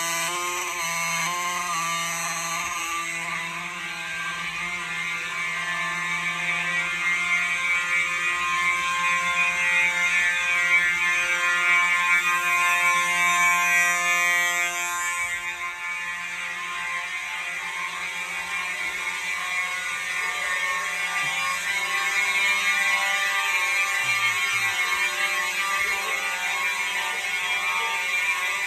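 Simplex 4903-9219 fire alarm horn strobes sounding during an alarm test, a steady pitched tone with many overtones.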